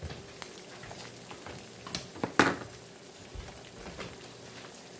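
Four eggs frying in a nonstick pan in a little leftover bacon grease: a steady sizzle with scattered small pops, a couple of louder ones a little past halfway.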